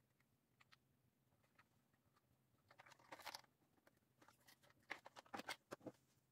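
Faint clicks and rustling of plastic wiring-harness plugs and cables being handled, with a short rustle about three seconds in and a run of small clicks near the end.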